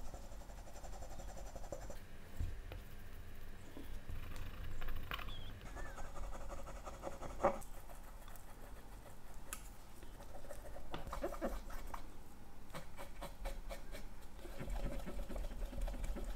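Pegwood and cotton swab rubbing and scraping over brass watch-movement plates, with nitrile gloves rustling and small clicks and taps as the parts are handled on a paper towel.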